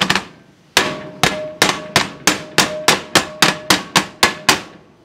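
A cast iron skillet, a Red Mountain No. 8, is struck down repeatedly on a glass cooktop: after a quick flurry of blows dies away, about fifteen sharp clanks come faster and faster, with the skillet ringing in a steady tone between blows. The glass holds without breaking.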